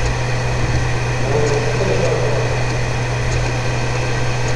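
Steady low hum and hiss of the room and recording, unchanging throughout.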